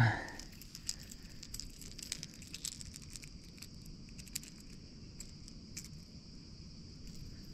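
Small clicks and light rattles of a hard minnow lure and its hooks being worked by hand out of a small asp's mouth, over a faint steady high hiss. A short thump right at the start is the loudest sound.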